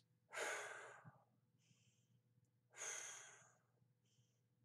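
A woman taking slow, deep calming breaths, blowing out audibly through pursed lips twice, with fainter in-breaths between.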